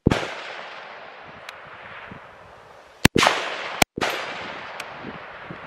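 Rifle shots on a firing line: the rolling echo of a shot fading as the sound begins, then two sharp cracks less than a second apart about three seconds in, each followed by a long rolling echo. Fainter single shots sound farther down the line in between.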